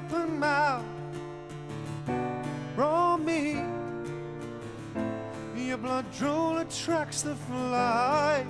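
Live band music: a man singing a slow song with acoustic guitar accompaniment, in three sung phrases with wavering held notes over steady low instrumental notes.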